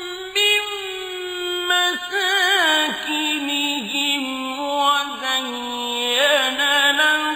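A man's voice reciting the Quran in the melodic, drawn-out tajweed style, sustaining long notes with ornamented pitch turns and short breaks between phrases.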